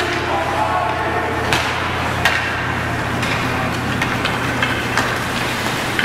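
Ice hockey play on an indoor rink: sharp clacks of sticks and puck, the clearest about one and a half and two and a half seconds in, over faint spectators' voices and a steady low hum.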